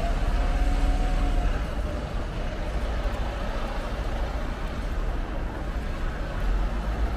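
Diesel coach or bus engine running steadily, a low rumble, with a faint whine that fades out about a second and a half in.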